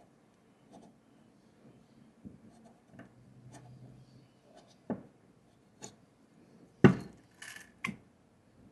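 Coffee gear being handled on a counter: scattered light clicks and clinks of glass and metal, with one loud knock about seven seconds in, a short clink, and another knock just after.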